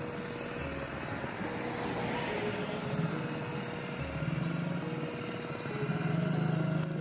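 A minivan drives past close by and away, its engine and tyre noise swelling about two to three seconds in. Background music with a simple melody plays throughout.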